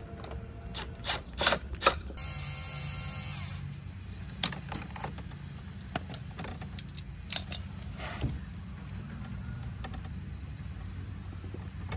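Hand tools clicking and clattering during installation work, loudest in a quick run of clicks just after the start, with a short whirring stretch about two seconds in and scattered clicks after it, over a steady low hum.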